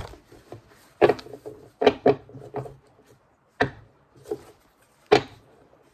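A tarot deck being shuffled by hand: a series of about seven short, sharp card slaps and flicks, spaced irregularly.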